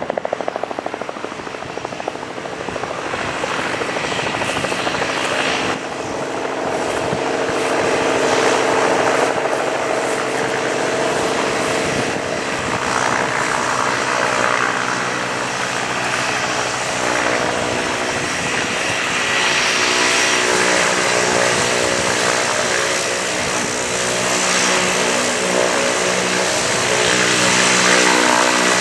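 Cessna 208 Grand Caravan's single turboprop engine and propeller running at taxi power, a steady droning hum with a high turbine whine, growing slowly louder as the aircraft comes closer. For the first six seconds or so a different, less steady aircraft engine sound is heard, then the sound steps up when the Caravan's engine takes over.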